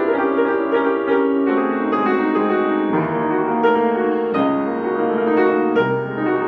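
Blüthner grand piano, recently reconditioned, being played: a flowing piece of melody over sustained chords, the notes changing every half second or so and ringing on into each other.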